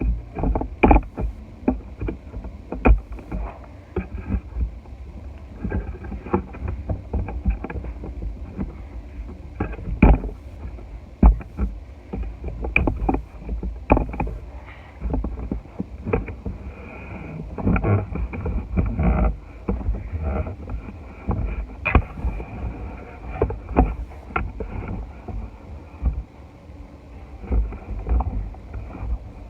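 Crunchy slime being squeezed and worked by hand, giving off many irregular crackles and pops over a low squishing and handling noise.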